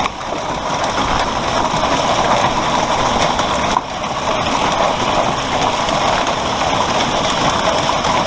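Heavy hail, golf-ball size, mixed with rain, pelting down in a dense, steady clatter of countless impacts.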